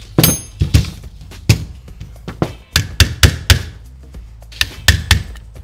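About a dozen sharp metal taps and knocks at uneven spacing, some with a brief high metallic ring, from a hand tool striking the metal parts of a car power antenna unit on a workbench.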